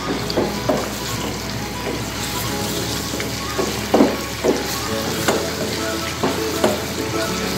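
Ginger-garlic paste sizzling in hot oil in a pot, stirred with a wooden spatula that scrapes and knocks against the pan several times.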